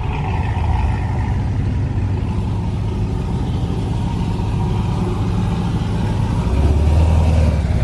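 Cammed Chevrolet Corvette C7's V8 running at low speed, a steady deep exhaust rumble that gets louder near the end.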